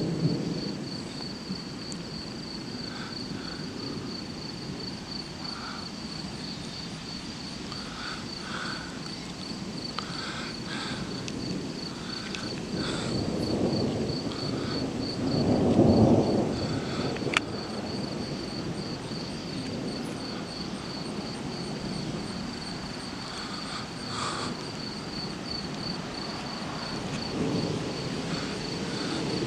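Thunder rumbling in several low rolls, the longest and loudest about halfway through, from a nighttime thunderstorm. Underneath, night insects chirp in a steady, fast pulse.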